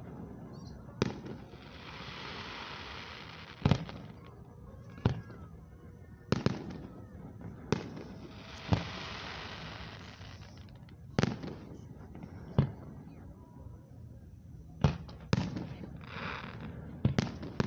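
Aerial fireworks shells bursting, about a dozen sharp booms at irregular intervals of one to two seconds. Twice a long crackling hiss follows a burst.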